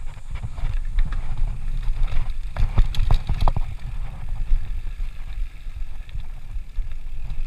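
A mountain bike rolling down rough dirt singletrack, its frame and drivetrain rattling and clicking over rocks and roots, with a denser cluster of knocks about three seconds in. A steady rumble of wind on the microphone runs underneath.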